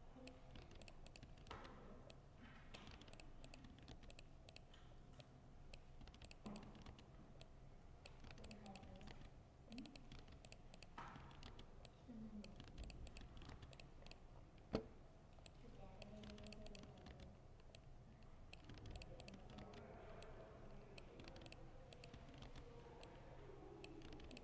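Faint typing on a laptop keyboard: soft key clicks at an uneven pace, with one sharper click about halfway through.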